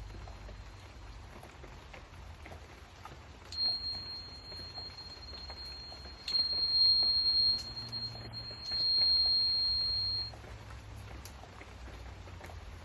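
Rain pattering steadily, with a single high, pure tone rung out over it: a struck tuning fork, sounded three times a few seconds apart and ringing on before fading out.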